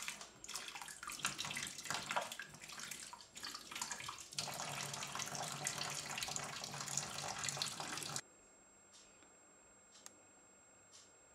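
A thin stream of water from a kitchen mixer tap splashes into a stainless-steel sink, its noise uneven, then stops abruptly about eight seconds in, leaving quiet room tone with a few faint clicks.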